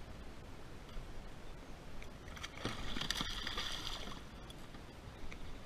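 Hooked gar pike thrashing and splashing at the water's surface: a burst of splashing lasting about a second and a half, in the middle.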